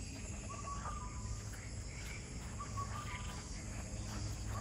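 Dusk forest ambience: insects trilling steadily, with a bird's short call, level in pitch and dropping a little at its end, repeated about every two seconds.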